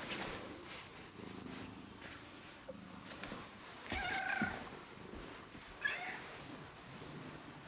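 Ginger-and-white house cat meowing twice up at its owner: a longer meow about four seconds in and a short one near six seconds, with soft purring in between. The owner reads these as a demand, wanting either to go out or to be fed.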